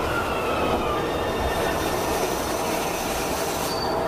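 Alstom-Siemens/Mafersa/Villares Frota I metro train pulling into the platform and slowing. A steady rumble of wheels and running gear is heard, with thin high whines falling slowly in pitch as it decelerates.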